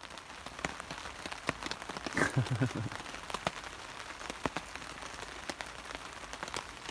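Rain falling on a tarp overhead: an even hiss with frequent sharp taps of single drops. About two seconds in, a brief low voice-like sound.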